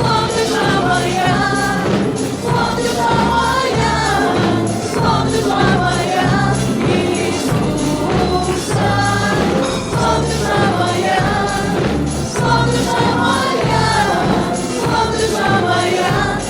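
Gospel praise song: a group of voices singing over a band with a steady bass line and beat.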